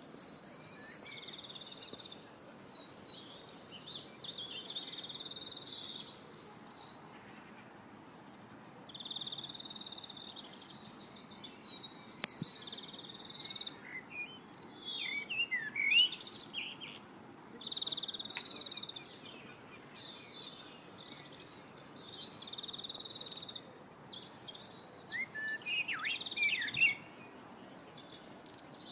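Several songbirds singing: a busy mix of chirps, buzzy trills and short whistles, one call after another, over a faint background hiss.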